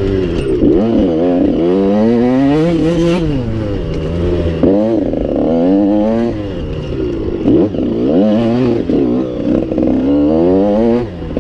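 Dirt bike engine revving hard under acceleration, its pitch climbing and dropping again and again as the rider shifts gears and backs off over the race course.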